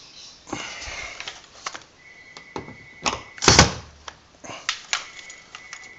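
Clicks and knocks of vertical blind fittings being handled and fitted at the door frame, with one sharp knock about three and a half seconds in. A faint thin whine sounds twice.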